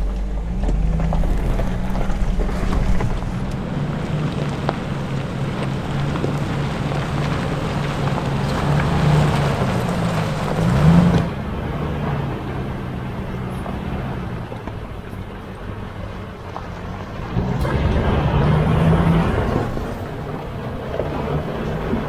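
Off-road SUV crawling over a rocky trail: the engine runs at low revs with its pitch rising and falling, and briefly revs up about halfway through, under the rumble and crunch of tyres and suspension working over rocks and gravel.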